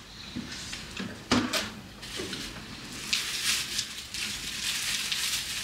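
Takeout food packaging being handled: a sharp snap a little over a second in, like a plastic container lid, then crinkling and rustling through the second half.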